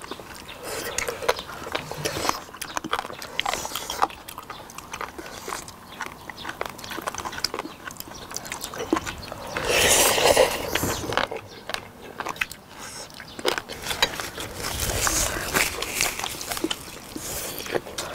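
People chewing and slurping braised warty sea squirts and noodles, with chopsticks and serving tongs clicking against dishes. Short crunches and clicks go on throughout, loudest about ten seconds in.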